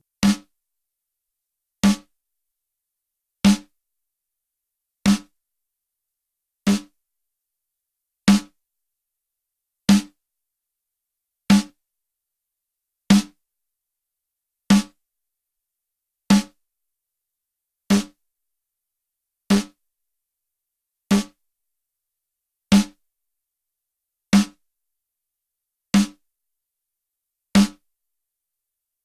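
A single snare drum hit repeating about every 1.6 s, played back through a Lindell 7X-500 500-series compressor, an 1176-style FET compressor, set to 4:1 with the fastest attack. Each hit has a short crack and a body around 200 Hz.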